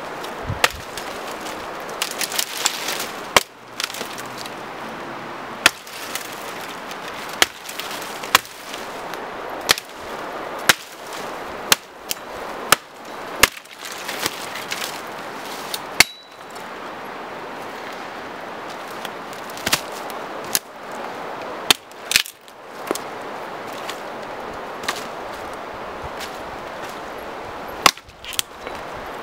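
Hatchet chopping dead wooden branches: a series of sharp, irregular strikes roughly one to two seconds apart, with a short lull a little past the middle.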